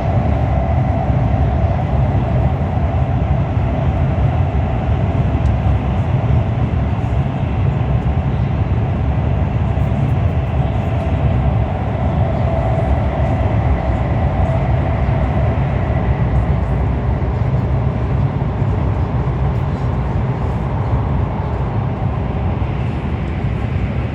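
CRH1A-A high-speed train running steadily, heard from inside the passenger cabin: a continuous low rumble of wheels and running gear with a faint high whine over it.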